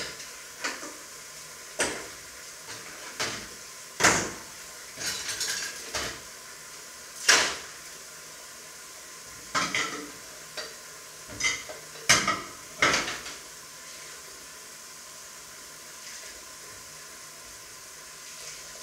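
Dishes, pots and cutlery clinking and clattering as they are handled in a kitchen sink: a dozen or so sharp knocks over the first thirteen seconds, then only a steady faint hiss.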